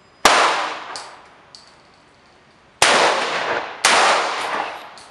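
Three shots from a 5.56/.223 AR-15 rifle with a 20-inch barrel, each ringing out and dying away over about a second. The first shot comes alone, and the other two follow about a second apart roughly three seconds in. A couple of fainter sharp clicks come after the first shot.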